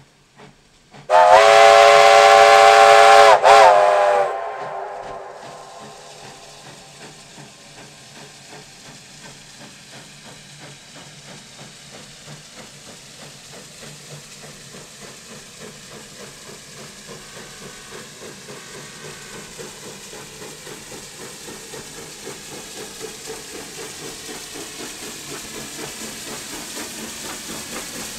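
Southern Pacific narrow-gauge 4-6-0 steam locomotive #18 blows its steam whistle, a loud blast of several tones about a second in that sags in pitch as it cuts off after about three seconds. Then comes the locomotive working steam, its steady rhythmic exhaust beats growing gradually louder as it comes on for the run-by.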